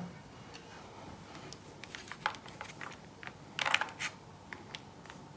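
Shredded mozzarella sprinkled by hand onto lasagna in an aluminium foil tray: faint scattered rustles and soft ticks, with a brief louder patch of rustling about two-thirds of the way through.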